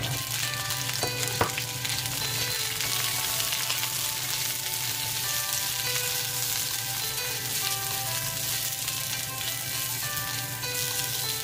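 Green beans frying in hot oil in a steel wok and being stirred with a silicone spatula: a steady sizzle that starts as the beans go in, with one sharp knock about a second and a half in.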